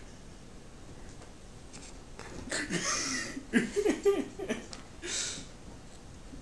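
A person chuckling and laughing softly for about two seconds midway, ending in a breathy exhale.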